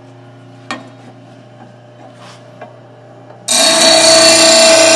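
Oregon bench blade grinder running with a steady hum and a couple of light knocks. About three and a half seconds in, the steel mower blade is pressed to the spinning wheel and loud grinding takes over, taking metal off the blade's heavy side to balance it.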